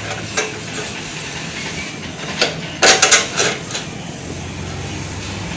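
Metal clinks and rattling from the rear drum-brake rod and its adjuster nut on a Honda CD 70 as they are turned and handled: a few light clicks, then a louder cluster of clinks about three seconds in, over a steady low hum.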